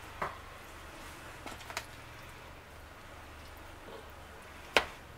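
Metal spoon tapping and clicking against a plastic container and tortillas as shredded chicken filling is scooped out: a few light clicks, then one sharper click near the end, over a low steady hum.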